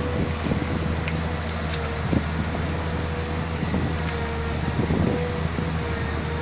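Excavator's diesel engine running steadily, with a steady whine above the low hum and a few short knocks along the way.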